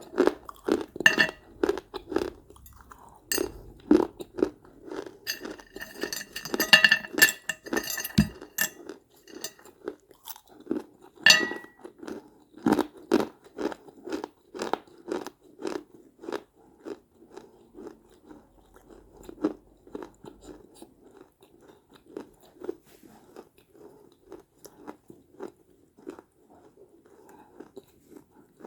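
Small baked clay pots being bitten and chewed close up: sharp crunching, densest about six to eight seconds in, then a steady run of chewing strokes that grows quieter near the end.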